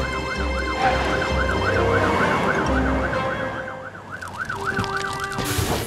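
Cartoon fire truck siren wailing rapidly up and down, over a low rumble that fades about four seconds in. The siren cuts off near the end.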